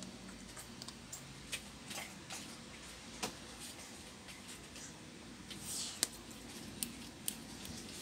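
Scattered light clicks and taps of a small circuit board being handled and turned in the fingers, with a brief rustle about three-quarters of the way through.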